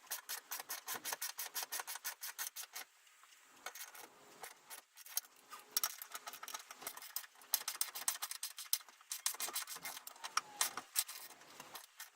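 Hand socket ratchet tightening bolts: several runs of rapid, even clicks of the pawl, about seven a second, with short pauses between strokes.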